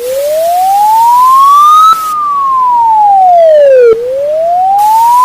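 Electronic emergency alert siren: one clean tone wailing slowly, rising for about two seconds, falling for about two seconds, then rising again, over a steady hiss.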